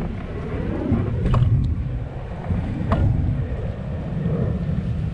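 Wind buffeting the microphone as a low, uneven rumble, with two short sharp clicks about a second and a half and three seconds in.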